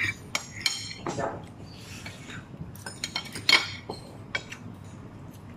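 A metal fork clinking and scraping against a plate while eating noodles: scattered light clinks, the loudest about three and a half seconds in.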